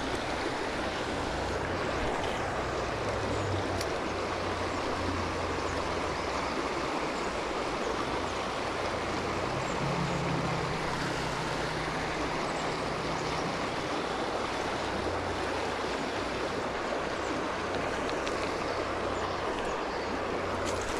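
Steady rush of flowing river water, with a faint low rumble coming and going underneath.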